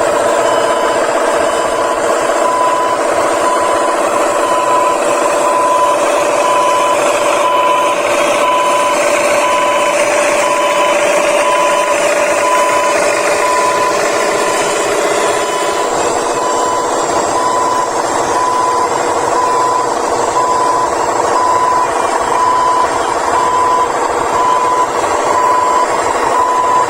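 Steady engine-type running of RC construction vehicles, thin and without deep bass, with a short beep repeating at an even pace like a reversing alarm.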